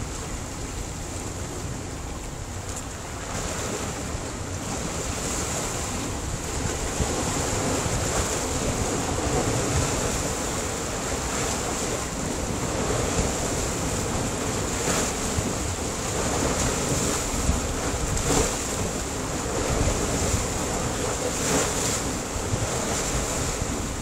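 Sea waves breaking and washing against a rocky shoreline: a continuous rushing surf that swells and ebbs, with several louder breaks in the second half.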